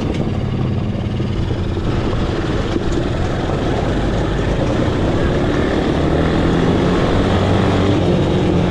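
Four-wheeler (ATV) engine running while being ridden, with a steady note that gets a little louder from about halfway through.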